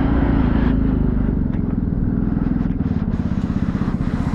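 Vespa scooter's engine running as the scooter slows and stops. The wind noise drops away about a second in, and the engine settles to an idle with a rapid, even throb.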